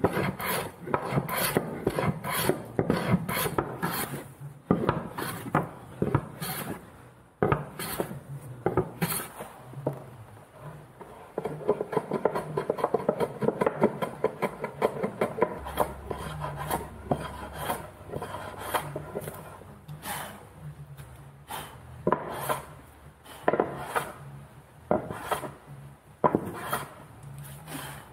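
Wooden-bodied hand plane shaving the face of a soft ginkgo board in quick, repeated passes, a rasping shave on each stroke at about two strokes a second.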